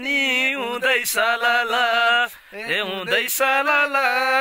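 A man singing a slow melody without accompaniment, in long drawn-out notes whose pitch wavers, with a short break about halfway through.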